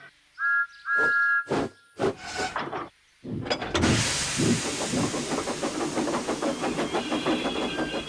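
Steam locomotive whistle giving two short toots, followed a couple of seconds later by a loud rush of steam hiss and a fast, regular run of exhaust chuffs.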